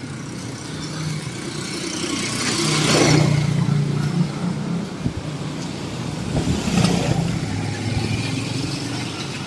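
Road traffic: motor vehicles passing close by, their engines and tyres swelling to a peak about three seconds in and again about seven seconds in.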